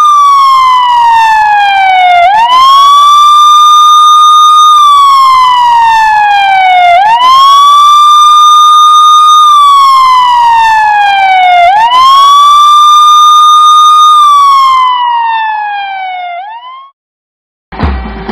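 Police-style siren wailing loudly. Each cycle sweeps quickly up, holds high for about two seconds, then slides slowly down, repeating about every four and a half seconds. It cuts out near the end and music with drums starts.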